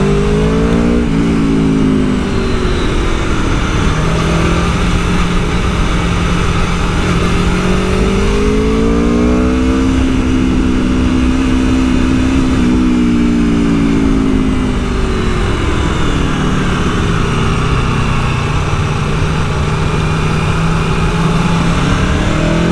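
Aprilia Tuono V4 1100's 1077 cc V4 engine pulling on the road. Its pitch rises under acceleration and falls back several times, with steady cruising stretches in between.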